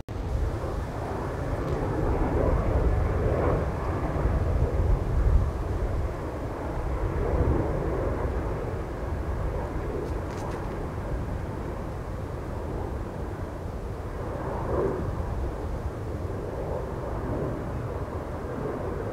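Jet airliner on landing approach, a steady low rumble that swells slightly and eases off again.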